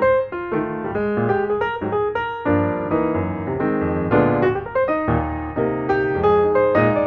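Piano music with chords and a bass line, a steady run of struck notes.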